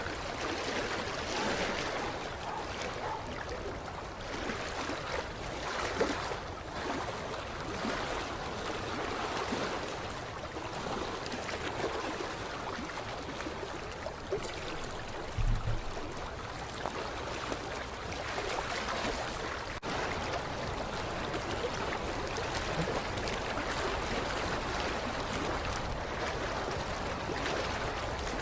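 Creek water lapping against the shoreline: a steady, irregular wash of small splashes. A brief low thump about halfway through.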